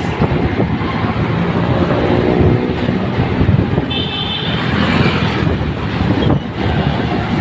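Motorcycle ridden through city traffic: engine running under heavy wind rush on the phone microphone, with a short high-pitched beep about four seconds in.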